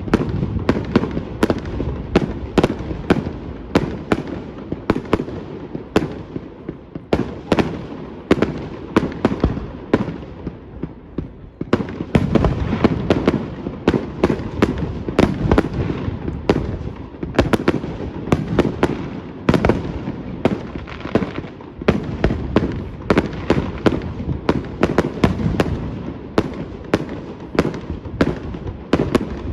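Aerial fireworks going off in a dense barrage: many sharp bangs and cracks, often several a second, over a continuous low rumble of bursts, with a brief thinning about ten seconds in before the bangs pick up again.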